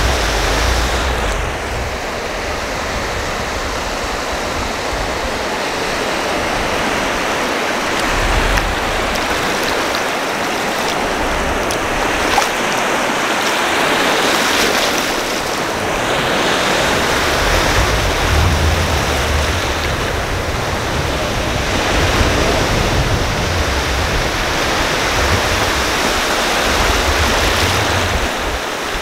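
Ocean surf on a beach: a steady rush of breaking waves that swells and eases every few seconds. Wind rumbles on the microphone at times.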